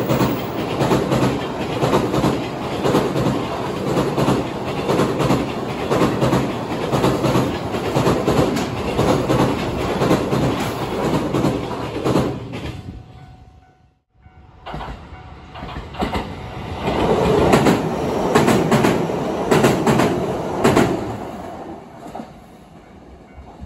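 Freight train's container flatcars, mostly empty, rolling past over a railway bridge with a steady clickety-clack of wheels over rail joints, which fades out about 13 seconds in. After a short break, a JR 227 series electric train passes with the same wheel clatter, loudest for a few seconds, then fading as it moves away.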